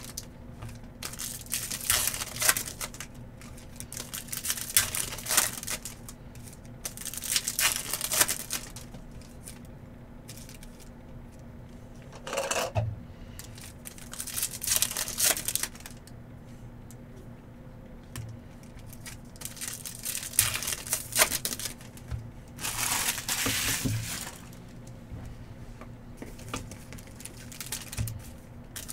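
Trading card packs being torn open and their wrappers crinkled, in short bursts every few seconds.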